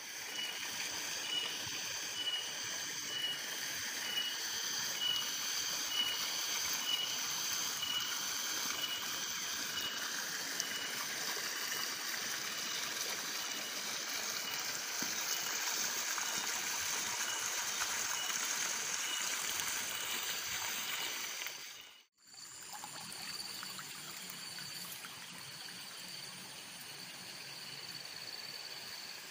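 Water flowing steadily along a small open channel, a continuous trickling rush. High rhythmic chirping at about two pulses a second runs over it for roughly the first third. The sound cuts out for an instant about three quarters of the way through and comes back a little quieter.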